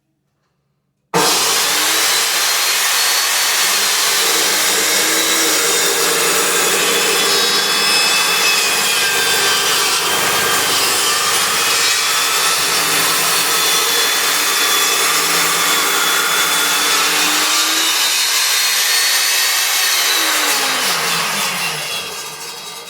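Skil table saw ripping a 6x6 wooden beam, its whine wavering in pitch as the blade works through the wood. The sound starts abruptly about a second in. Near the end the pitch falls and the sound dies away as the saw winds down.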